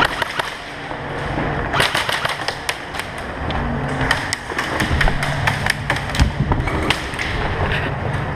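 Airsoft gunfire and impacts: quick strings of sharp clicks, starting about two seconds in, with thuds and knocks as the player moves against the plywood walls.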